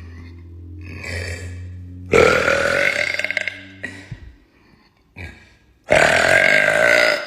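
A woman belching twice, two long, loud burps lasting a second or two each, the second about four seconds after the first, echoing in an empty, unfurnished room.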